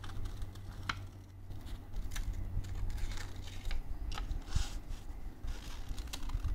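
Scissors cutting paper: several irregular short snips over a steady low hum.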